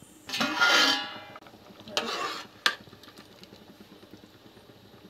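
Slotted steel spoon scraping through the pot of boiling green gram, once for about a second and again more briefly, with a sharp metal clink against the pot just after the second scrape.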